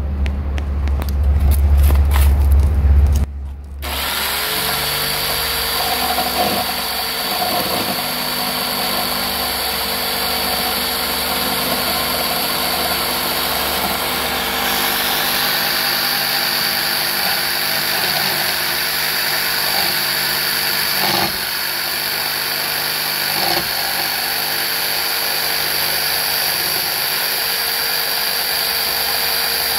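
Tramontina jigsaw cutting a pine board: its motor starts about four seconds in and then runs steadily, with a high whine over the rasp of the blade. Before it starts there is a few seconds of low rumble.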